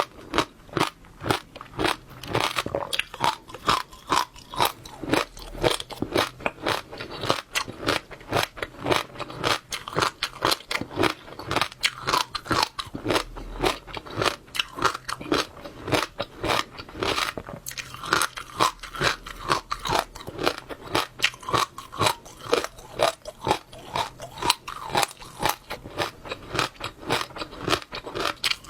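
Close-miked chewing of wet passionfruit seeds: a steady run of crunches and pops, about two loud ones a second.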